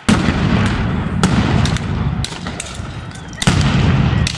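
Police stun grenades going off: a loud blast right at the start and another about three and a half seconds in, with sharp cracks and a heavy rumble continuing between them.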